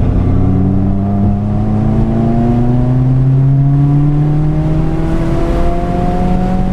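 Stage 2 modified 2015 Subaru WRX's turbocharged flat-four engine accelerating under load, its pitch rising slowly and steadily through one long gear.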